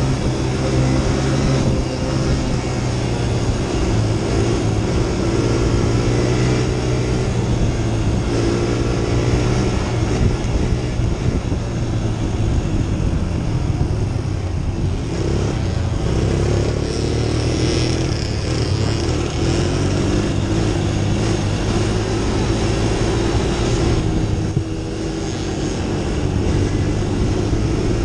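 Quad (ATV) engine running hard under racing load, heard from a camera mounted on the machine itself and held in third gear; its pitch dips and rises a little through the turns, with a short drop in loudness near the end.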